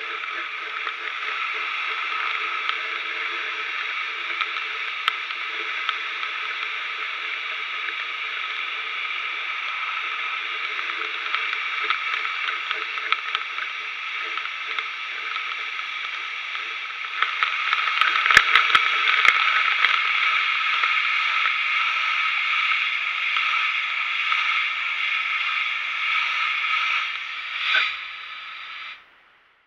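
Steady hiss of compressed air jetting from the nozzle of a homemade pressure-pot sandblaster. It gets louder a little past halfway, with a few sharp clicks, then cuts off just before the end.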